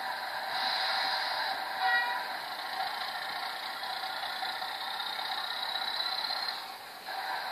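Electronic sound module in an O gauge Class 40 model locomotive playing a recorded diesel engine sound through its small loudspeaker, thin and tinny. There is a short horn toot about two seconds in, a high whistle that slowly rises in the middle, and the sound dips briefly near the end.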